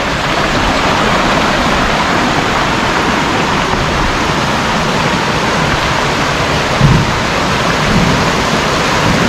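Shallow rocky stream rushing over stones and boulders in small cascades: a steady, even rush of water.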